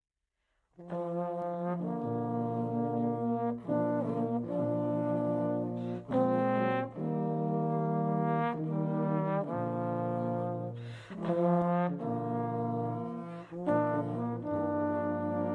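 A brass ensemble, a virtual one with its parts recorded separately and mixed together, starts playing about a second in: full held chords with a low bass line, the harmony moving every second or two.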